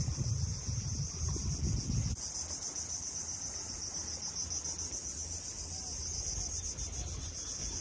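Insect chorus, a steady high-pitched pulsing buzz, with low rumbling noise underneath for the first two seconds.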